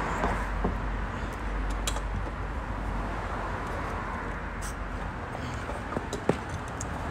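Steady outdoor noise with a low rumble, broken by a few short sharp metal clicks and taps as a too-small wrench works at and slips on a car's oil drain plug; the sharpest click comes near the end.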